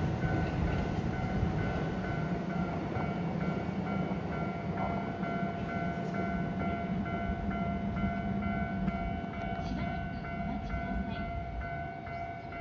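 Level crossing warning bell sounding in a steady repeating pattern over the running rumble of a Keisei 3700 series electric train, which fades gradually.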